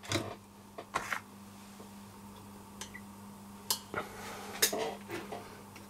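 Scattered light clicks and taps of small hand tools and wire being handled at a workbench, a few times a second or more apart, over a faint steady low hum.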